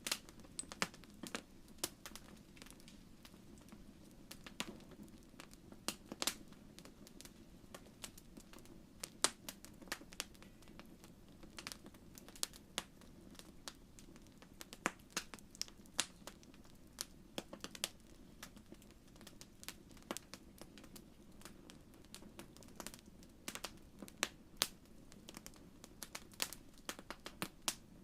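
Wood fire crackling in a fireplace: irregular sharp pops and snaps, several a second, over a low, steady rumble of burning.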